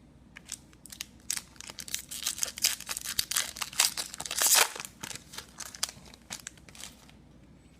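Trading-card pack wrapper crinkling and tearing open by hand, in a rapid run of crackles with a loud rip about four and a half seconds in, as the cards are pulled out.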